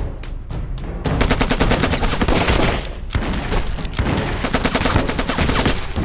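Rapid gunfire, many shots a second in a sustained fusillade, starting about a second in, over dramatic soundtrack music.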